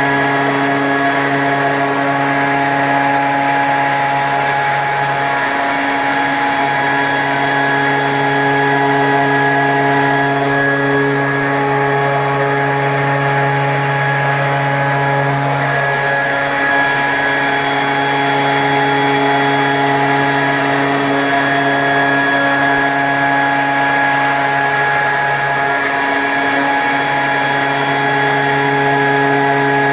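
CNC machine spindle running steadily, drilling a hole into a river stone: a loud, even hum with a fixed pitch that wavers briefly twice, about six and twenty-six seconds in.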